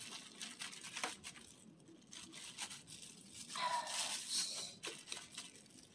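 Dry, crisp tangerine peels crackling and a disposable plastic glove crinkling as a hand stirs through sugar-cured tangerine segments in a plastic container, a quick run of small crackles. A short pitched squeak comes about three and a half seconds in.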